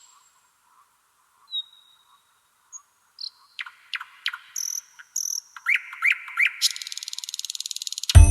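Nature soundscape of crickets and birds. A cricket-like insect trill of rapid pulses drops out at the start and comes back about seven seconds in. In between come scattered short bird chirps, whistles and quick falling notes.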